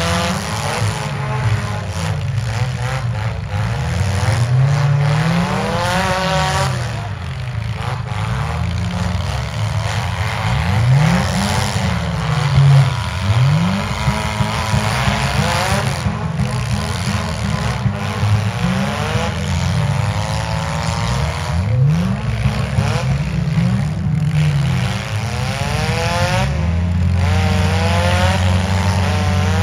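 Demolition derby cars' engines revving up and down together, many pitches rising and falling over one another, with now and then a sharp knock.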